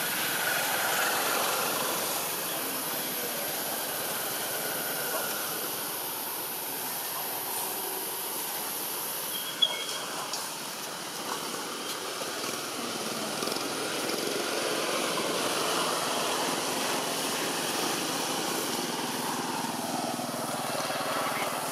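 Outdoor ambience: a steady hum of distant motor traffic with faint voices. A high hiss cuts off abruptly with a sharp click about ten seconds in.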